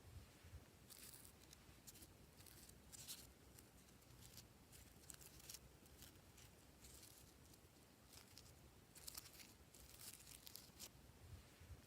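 Faint, sticky crackling of glossy slime being worked by hand, coming in short bursts every second or two.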